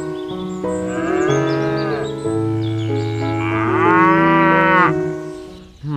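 A cow mooing twice, the second moo longer and louder, over background music with held notes.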